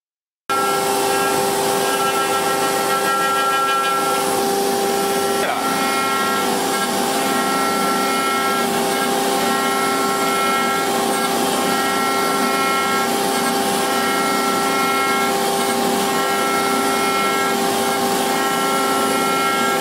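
CNC router spindle running at high speed as its bit carves a wooden beam: a steady high whine with overtones over cutting noise, some tones pulsing as the bit works. It starts abruptly about half a second in, with a brief break in the sound around five seconds later.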